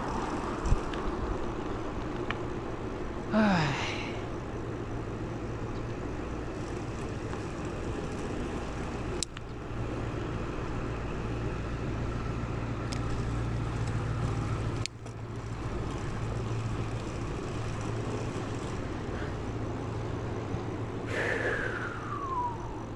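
Steady street traffic and road noise heard from a moving bicycle, with a low steady hum from passing motor vehicles. A brief gliding squeal comes about three seconds in, and another falling one near the end.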